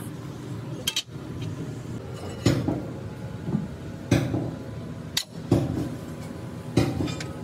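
Hammer striking metal: about four sharp blows roughly a second and a half apart, with a couple of lighter knocks between them, over a steady low hum.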